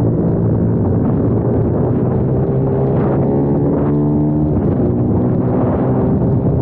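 Kayo TT 140 pit bike's single-cylinder four-stroke engine running hard, heard up close from on board. Its pitch dips about three seconds in and climbs again toward the end.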